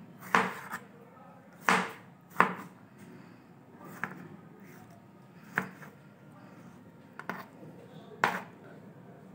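Kitchen knife cutting tomatoes on a plastic cutting board: about eight separate sharp knocks of the blade striking the board, spaced irregularly a second or so apart.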